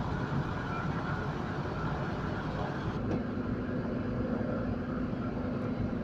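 Steady low rumble of heavy construction machinery engines running. About three seconds in there is a click, and after it a steady hum runs underneath.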